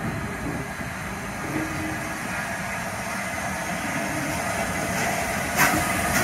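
Rebuilt Bulleid Light Pacific steam locomotive 34059 rolling slowly past tender-first, its wheels and running gear making a steady rumbling noise that grows a little louder as the engine draws level. There is a single sharp clank about five and a half seconds in.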